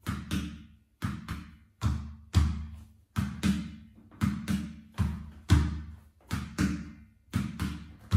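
Flamenco shoes striking a wooden floor in a footwork drill of heel strikes and látigos (whip-like leg kicks that snap the foot into the floor): a steady rhythm of sharp strikes, about two a second, each ringing briefly.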